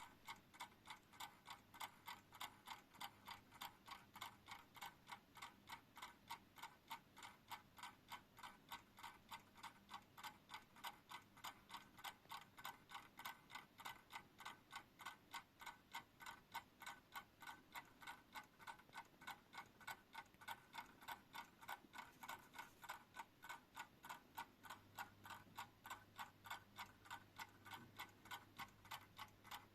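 A 1968 Japy French alarm clock ticking: faint, fast and perfectly even, the steady beat of its movement running.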